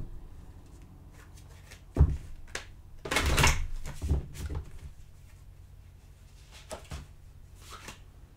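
A deck of tarot cards handled and shuffled by hand: a sharp knock about two seconds in, a short rustling shuffle of the cards a second later with a few knocks after it, then a few faint clicks near the end.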